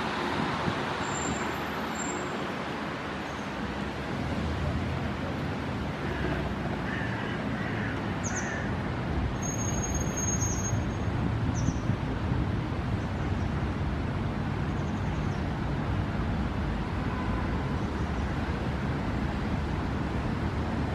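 Steady outdoor city background: a low, even traffic rumble, with a few short high chirps about eight and ten seconds in.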